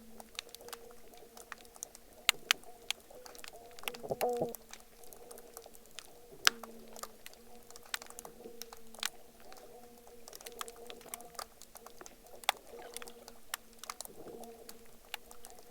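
Estuary soundscape recording: dense, irregular sharp clicks and crackles over a low hum of steady pitch that fades in and out, with a louder pulse about four seconds in.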